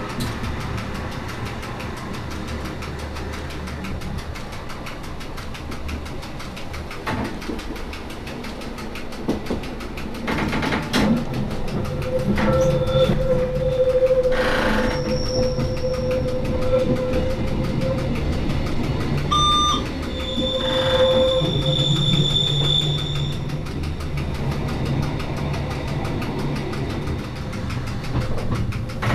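Rhaetian Railway metre-gauge electric train heard from the cab while running: a steady rumble and clatter of wheels on rail. From about twelve seconds in, high squealing tones come and go for around ten seconds.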